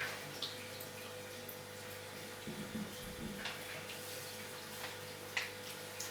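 A serving spoon scooping the wet chicken biryani mixture out of the pot and spooning it over a layer of rice in a dish, giving a few short scrapes and taps and soft wet plops, over a steady low hum.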